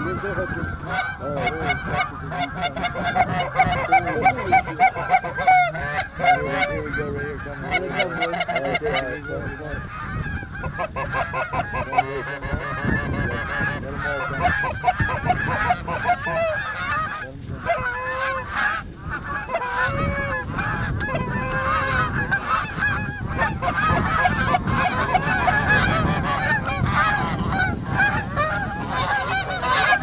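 A large flock of geese honking, many overlapping calls going on without a break.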